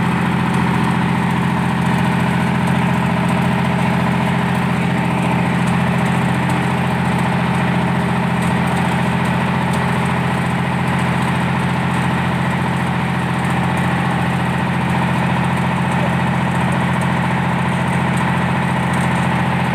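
Large engine running steadily at idle, an even, unchanging hum throughout.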